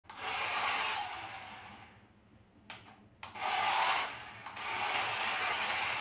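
Remote-control toy car's small electric motor and gears whirring as it drives across a stone tile floor. It runs in two surges with a lull and a couple of clicks in between, then runs steadily near the end.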